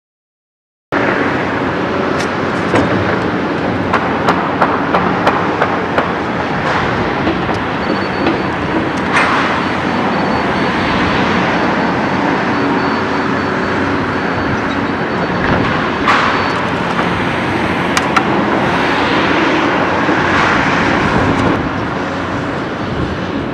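Caterpillar 324D tracked excavator's diesel engine running steadily under working load as it digs and dumps sand, starting about a second in, with scattered sharp clanks and a few brief swells of hissing noise.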